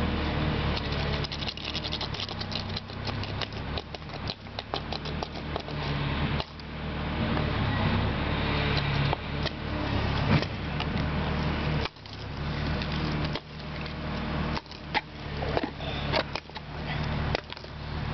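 A steady low drone of a running motor, with many irregular clicks, scrapes and rattles close by.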